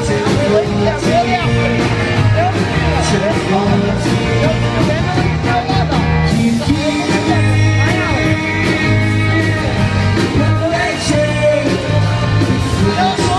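Live rock band playing: a male lead singer over strummed acoustic guitar, electric guitars, bass and a steady drum beat, heard from the floor of a club.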